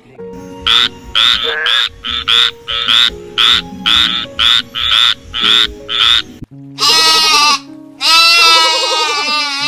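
A frog calling in a rapid run of short, repeated croaks, about two to three a second, for some six seconds. Then a goat bleats twice: a short bleat, followed by a longer quavering one.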